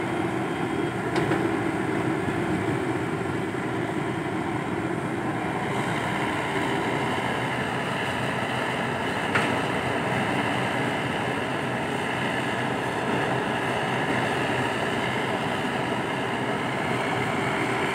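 Komatsu PC120-5 hydraulic excavator's diesel engine running steadily under load while the machine works. Two short sharp knocks, a faint one about a second in and a louder one about nine seconds in.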